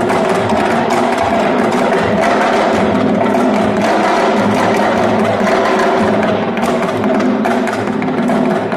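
A large drum ensemble, many tall drums struck with sticks and hands, playing a fast, dense rhythm together.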